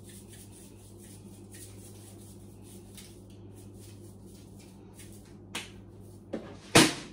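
Spice shaker being shaken over salmon on a sheet pan: faint, quick, irregular rattles. Near the end come a few knocks, the loudest a sharp clack about a second before the end.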